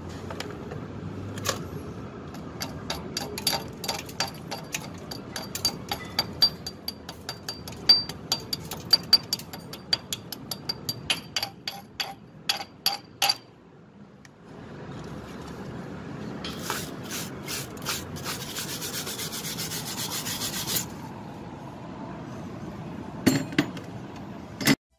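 A chipping hammer striking a stick-weld bead on galvanized angle steel to knock off the slag: a long run of sharp metallic taps with a ringing note. After a short pause comes a steady scratchy scrubbing as the weld is cleaned, then a couple more knocks near the end.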